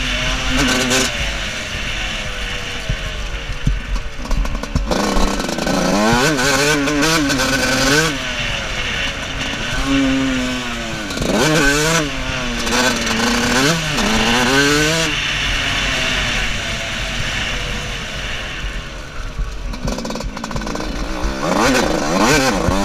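125cc two-stroke motocross bike engine revving up and falling off again and again as the rider works the throttle around the track, easing to a lower, quieter run in the second half before climbing again near the end.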